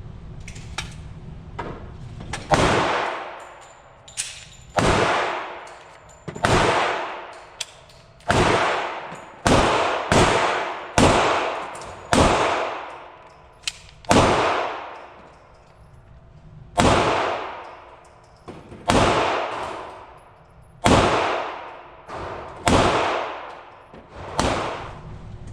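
Slow, aimed fire from a .45 ACP Glock pistol: about fourteen single shots, one every second or two, each followed by a long ringing echo.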